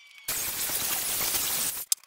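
Oregon CS1500 corded electric chainsaw cutting into a log: the chain and motor start about a quarter second in, run for about a second and a half, then stop near the end.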